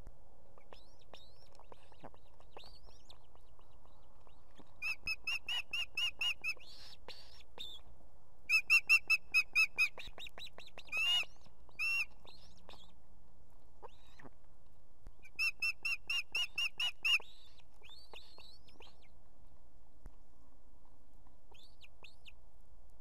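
Ospreys at the nest calling: four runs of rapid, sharp whistled notes, six to eight notes each, the second run the loudest, with fainter single chirps between the runs.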